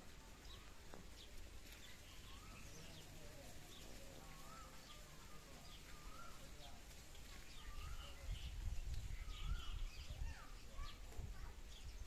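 Small birds chirping and calling over and over, with short quick notes and little warbled glides. A low rumble comes in about eight seconds in and lasts a few seconds.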